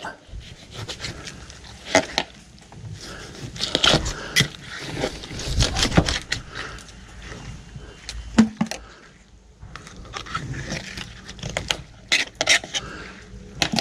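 Knife cutting and scraping on a table as small white perch are cleaned, with irregular clicks, knocks and scrapes from handling the fish.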